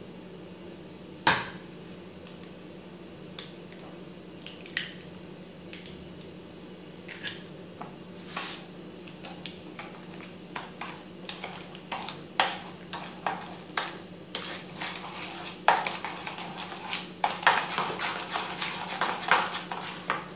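Metal fork clinking and scraping against a ceramic bowl while an egg is beaten into creamed butter and sugar, the strokes coming quicker and denser in the second half. One sharp knock about a second in.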